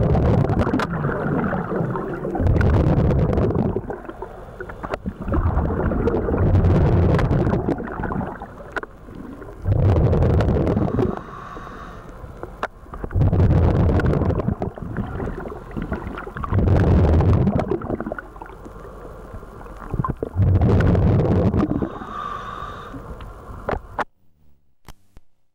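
Scuba diver breathing through a regulator underwater: a loud bubbling exhalation roughly every three and a half seconds, with a quieter hiss between breaths. The sound cuts off suddenly shortly before the end.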